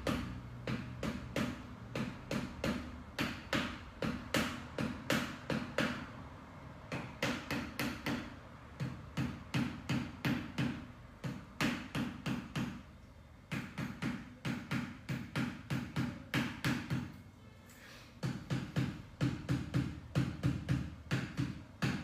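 A bone-setter's rapid percussive strikes on a patient's body, about two to three a second, in runs of several seconds with short pauses between.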